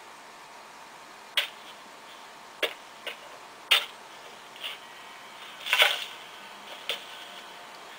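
Camera shutter clicks and flash pops, about seven sharp clicks at uneven intervals over a steady hiss, like an old soundtrack.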